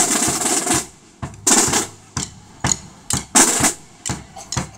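Drum corps of snare drums and a bass drum playing a cadence: short rolls, each under a second, between sharp single strokes.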